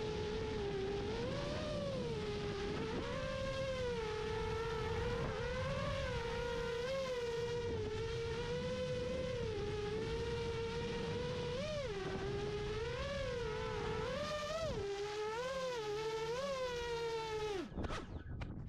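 FPV quadcopter's electric motors and propellers whining in flight, the pitch swelling up and settling back as the throttle is blipped again and again. Near the end the pitch drops steeply and the whine cuts off as the motors spin down.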